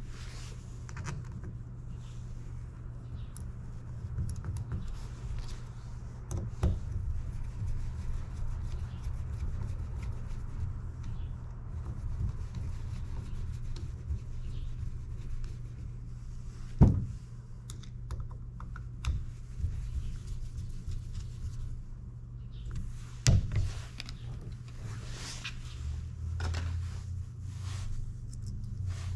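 Small clicks and scrapes of a screwdriver driving in the cover screws of a Suzuki Bandit 1200 vacuum fuel petcock during reassembly, with a steady low hum underneath. Two sharper knocks stand out past the middle.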